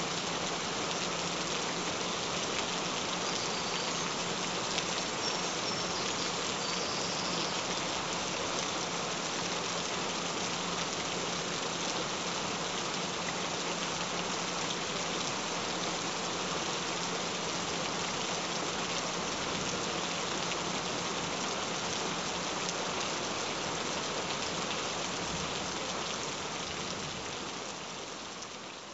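Steady rain falling, an even hiss of many drops, fading out near the end.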